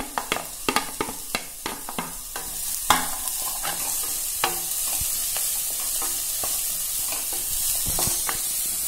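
A wooden spatula knocks and scrapes in quick taps as chopped carrots are pushed off a plate into a pressure-cooker pan. Then diced vegetables sizzle steadily in butter over a high flame while being stirred, with an occasional knock of the spatula on the pan.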